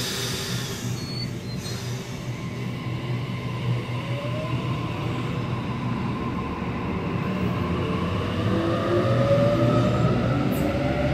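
Sydney Trains electric suburban train pulling away from the platform, its traction motors whining in rising tones that climb as it gathers speed, over the rumble of the wheels. A brief air hiss at the start, and the sound grows louder toward the end.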